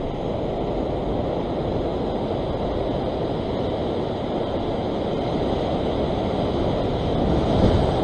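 Ocean surf washing against and over a rock ledge: a steady rush of water that swells a little near the end.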